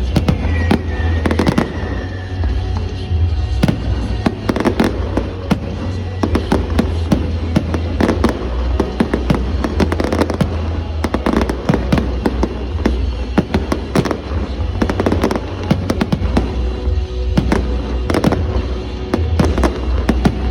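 Aerial fireworks display: a dense, unbroken run of bangs and crackles over deep booms, with no pause.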